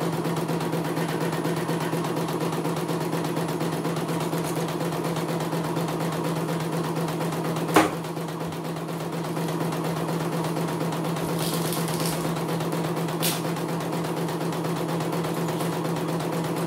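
CNY E900 computerized embroidery machine running steadily, its needle stitching a design into fabric in the hoop. A single sharp knock cuts through about eight seconds in, with a fainter click around thirteen seconds.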